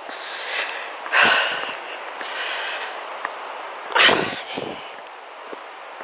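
A hiker's heavy breathing close to the microphone while walking, with loud puffs about a second in, about two seconds in, and, loudest, about four seconds in.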